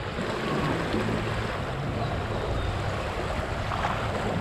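Small waves washing in the shallows at the shoreline: a steady wash of water noise with a low rumble underneath.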